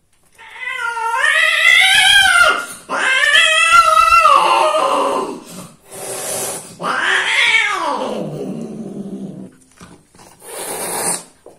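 Mating cats caterwauling: three long, wavering yowls, the last one falling in pitch. A short hiss comes near the end.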